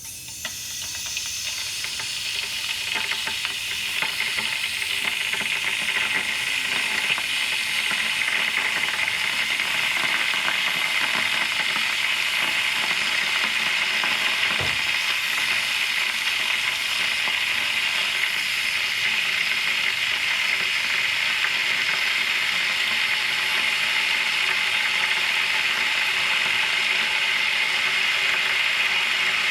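A kettle heating water toward the boil: a rushing, sizzling hiss that builds over the first few seconds, then holds steady.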